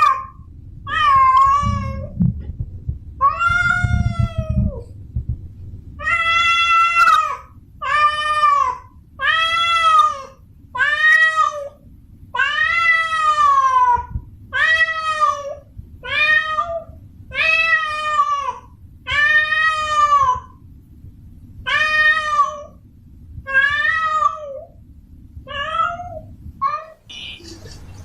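Female cat in heat yowling over and over to call a male: about fifteen drawn-out calls, each rising and then falling in pitch, roughly one every one and a half seconds. A low rumbling background noise runs under the calls.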